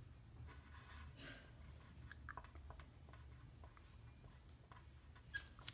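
Faint scratching of a pen or marker drawing strokes on paper, with small ticks and one sharper click near the end, over a low steady hum.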